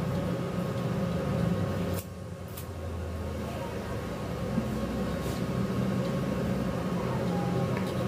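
Izumi MO120 inverter stick welder humming steadily, its cooling fan running, while the electrode is scratched against rusty steel to strike an arc. A few faint short crackles come through. The hum drops in level about two seconds in; the rust makes the arc hard to start.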